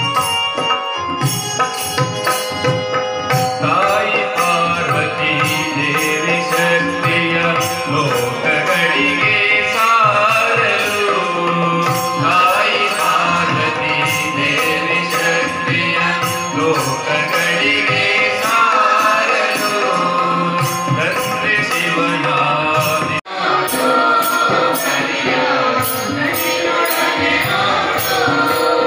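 Live devotional group singing into microphones, backed by a keyboard and tabla, with a steady high jingling tick keeping the beat. The music breaks off for an instant about two-thirds of the way through, then carries on.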